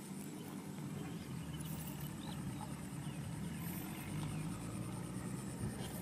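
A motor engine running steadily at a low pitch, growing louder about two-thirds of the way in, with a few faint high chirps above it.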